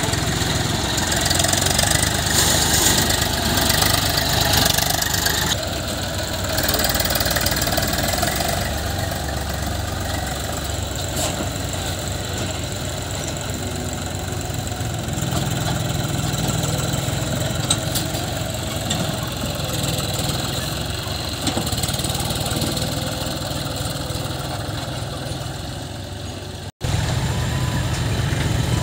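Farm tractor diesel engines running steadily while a tractor hauls a trolley loaded with soil through mud. The sound drops out for a moment near the end.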